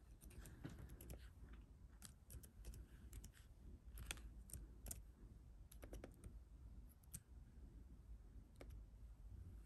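Faint, irregular typing on a computer keyboard: single keystrokes with short, uneven pauses between them as an email address is entered.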